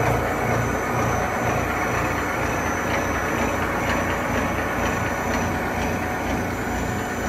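YK3180HCNC4 CNC gear hobbing machine running a trial cut: a steady mechanical running noise with a low pulsing hum and a faint, steady high whine.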